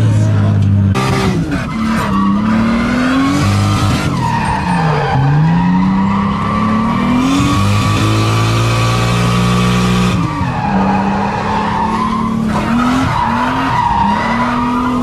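Drift car heard from inside the cabin: the engine revs climb and drop again and again while the tyres squeal and skid through a drift, the tyre noise loudest about halfway through.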